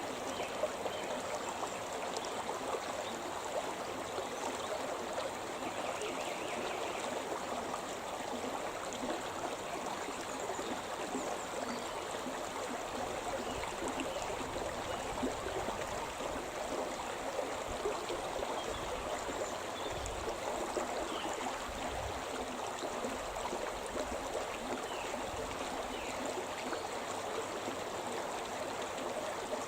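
Shimna River flowing: a steady, unbroken rush of running water.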